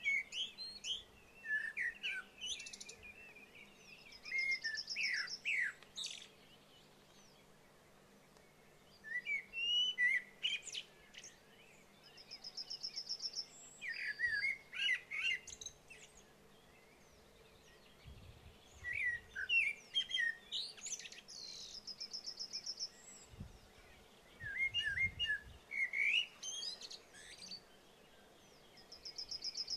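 Several songbirds singing in bouts of varied, quick whistled phrases, with a rapid high trill that comes back about every eight seconds.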